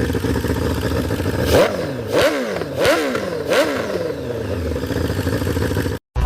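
Modified Honda Sonic RS motorcycle's 1000 cc four-cylinder engine idling, then blipped on the throttle four times in quick succession, each rev rising and dropping back, before settling to idle again. The sound cuts off abruptly near the end.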